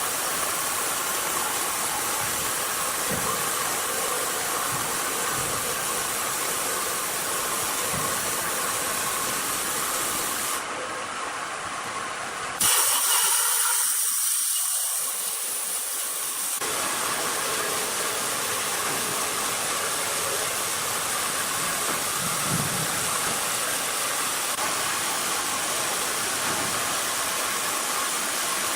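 Sawmill machinery running with a steady hissing noise, with a sudden change to a brighter, louder stretch about halfway through that lasts about four seconds before the steady noise returns.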